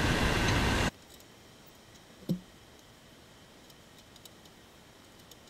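Steady outdoor background noise that cuts off abruptly about a second in, leaving near silence broken only by a few faint ticks and one short, low, falling blip.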